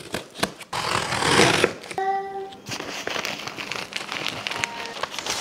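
Scissors snipping and slicing through the tape on a cardboard shipping box, then the cardboard flaps pulled open and paper packing crinkling and rustling.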